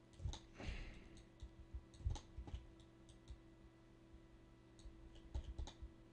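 Faint, irregular clicks of a computer mouse and keyboard, with a quick run of several clicks about five seconds in, over a low steady hum.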